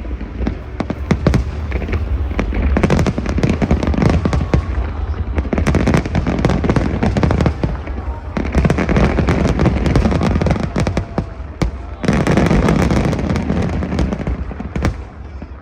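Fireworks bursting in rapid volleys: a dense crackle of many bangs and pops, coming in waves with short lulls, thinning out near the end.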